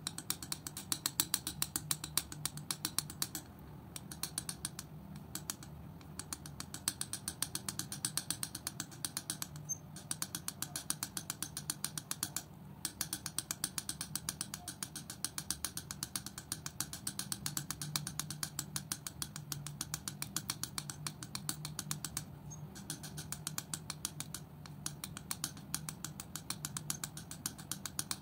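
Steel palette knife mixing and spreading thick wet acrylic paint on a smooth surface: a fast, even run of small sticky clicks and scrapes, with a few brief pauses.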